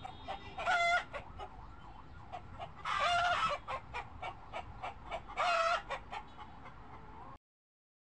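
Chickens clucking: a steady run of short clucks, with three louder drawn-out calls near the start, in the middle and about two-thirds through. The sound cuts off suddenly near the end.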